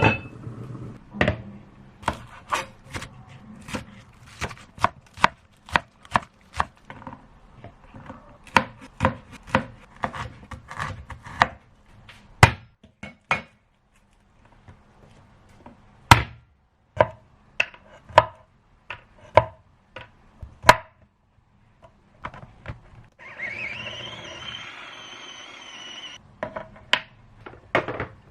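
Knife chopping food on a cutting board: a run of sharp, separate chops, often two or three a second, with short pauses. About three-quarters of the way through, a steady hiss lasts about three seconds before the chopping resumes.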